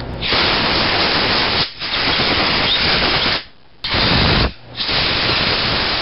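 Compressed-air blow gun blowing air through the fuel rail of a tankless water heater's gas burner to clear debris from its ports: four loud blasts of hiss with short breaks between, the third one short.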